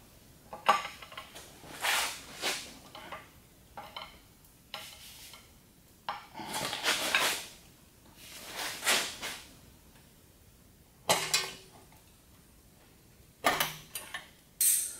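Metal clanking and rattling from the long steel handle of a hydraulic transmission jack being worked under a car, in separate bursts about every one to two seconds.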